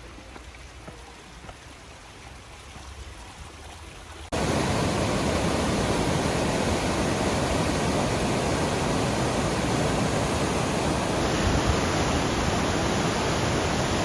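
Falling water of Eagle Falls: a softer steady rush that about four seconds in jumps suddenly to a loud, even rush.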